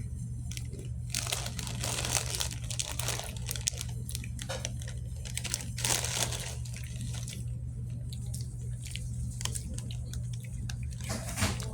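Plastic food packaging crinkling and rustling in irregular bursts, over a steady low hum.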